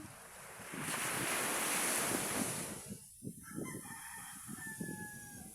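A rush of wind and surf noise for about two seconds, then a rooster crowing faintly in a long, slightly falling call near the end.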